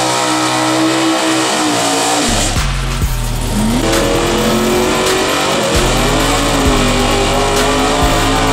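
C4 Corvette drag car doing a burnout: its V8 held at high revs, pitch rising and falling, with the rear tyres spinning and squealing.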